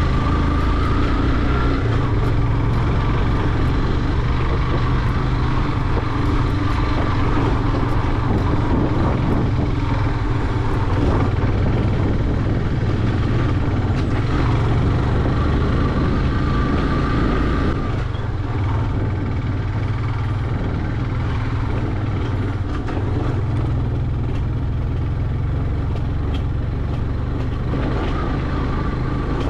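Yamaha motorcycle running along the road, a steady engine note mixed with road noise. It gets a little quieter about two-thirds of the way through.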